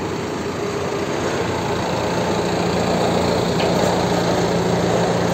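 Forklift engine running as the loaded forklift drives close by. It grows louder from about two seconds in, with a steady engine note.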